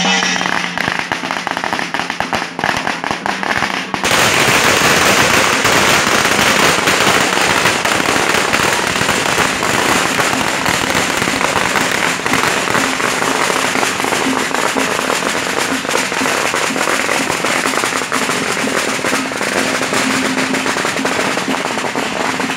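A long string of firecrackers going off. Scattered cracks at first, then from about four seconds in a dense, unbroken crackle that keeps going.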